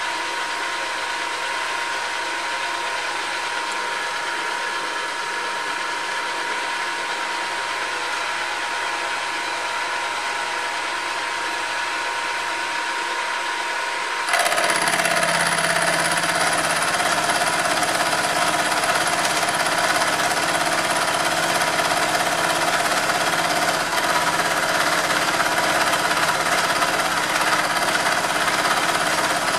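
Bench milling machine running, its cutter taking a fine cut in metal with a steady grinding, chattering noise. About halfway through, the sound jumps abruptly louder and fuller and then holds steady.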